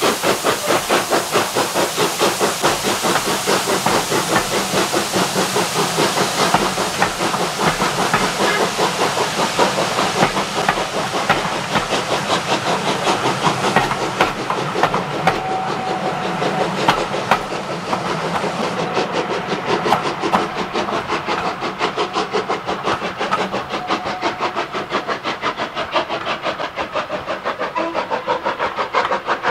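Steam train passing: LMS Jubilee 4-6-0 No. 45596 Bahamas working hard with a quick, steady exhaust beat and steam hiss, with its coaches clattering along the rails as it goes by.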